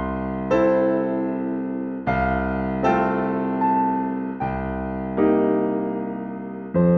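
Background music: a keyboard, piano-like in tone, playing slow chords. A new chord is struck about every second or so and left to fade.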